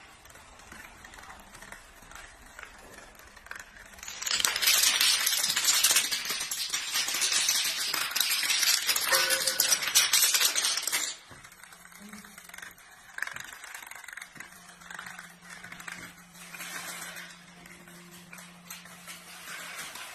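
Dominoes toppling one after another in a long chain, a fast dense clatter of small clicks. It starts about four seconds in and cuts off sharply some seven seconds later, followed by fainter, sparser clicking over a steady low hum.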